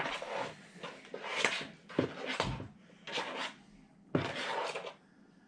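A plastic spoon stirring shaving cream into glue in a bowl: a run of squishy scraping swishes with a couple of sharp knocks of the spoon against the bowl.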